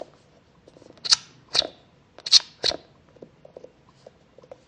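Four sharp plastic clicks, with fainter ticks between them, as a small plastic emoji squeeze toy is handled and turned in the fingers.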